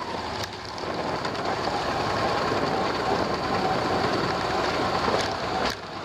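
Steady running noise of a vehicle, with a faint steady whine and a couple of short clicks near the end.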